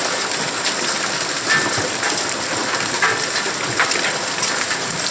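Golf-ball-sized hail and heavy rain pelting down: a dense, steady clatter with many separate sharp impacts, the hailstones splashing into an above-ground pool.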